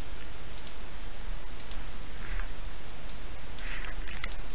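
Steady hiss and low hum of the recording microphone's background noise, with a few faint ticks.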